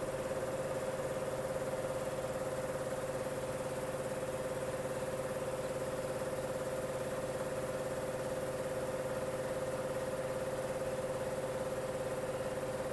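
Steady machine hum with a constant whine, unchanged in pitch and level.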